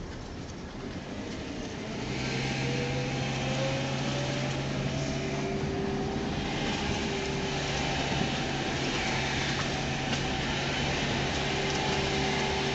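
Car engine and tyre noise heard from inside the cabin while driving, getting louder about two seconds in, with the engine note rising slowly.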